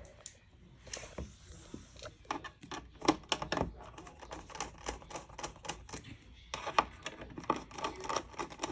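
Irregular clicks and taps of the UV air-sanitizer fixture's parts and hand tools being handled during reassembly, coming in quick clusters about two seconds in and again near the end.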